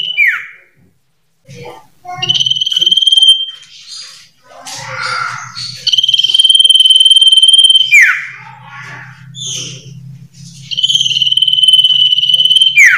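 Iora (sirtu/cipoh) singing: four long, steady high whistles, each held one to two seconds and ending in a quick downward slur, with short scratchy chattering notes between them.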